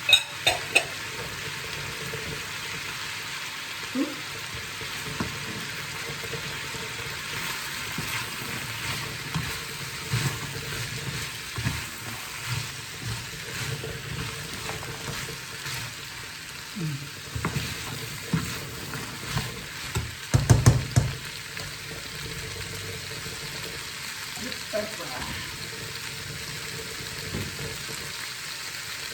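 Meat, beans and peas sizzling steadily in a frying pan while being stirred, with scattered knocks of the utensil against the pan. The loudest cluster of knocks comes about two-thirds of the way through.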